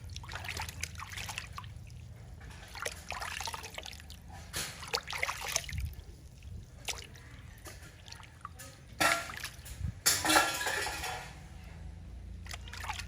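Water splashing, dripping and trickling in a baby monkey's bath, in irregular bursts, the loudest splashes about two-thirds of the way through.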